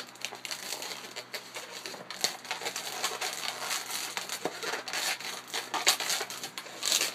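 Inflated latex twisting balloons rubbing against each other and the hands as they are twisted and worked into shape: a run of short, irregular rubbing and scraping noises.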